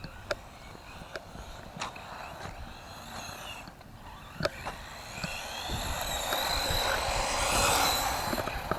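Electric motors of S912 remote-control monster trucks running, their whine rising and falling as they speed up and slow down, with tyre noise and scattered sharp clicks. The sound grows louder in the second half as a truck drives closer at speed.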